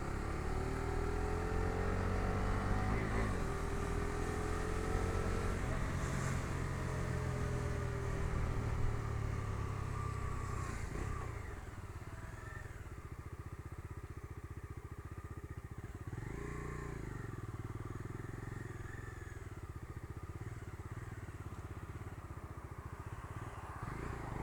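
Bajaj Dominar 250's single-cylinder engine heard from the pillion seat while riding, its revs climbing over the first several seconds. About halfway through the level drops and the engine runs quieter and steadier.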